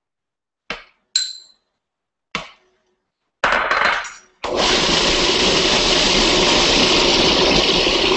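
A few light clinks of metal measuring spoons against ceramic bowls. Then a food processor gives a short burst and, about four and a half seconds in, runs steadily, grinding a sticky pecan, date and maple syrup crust mixture.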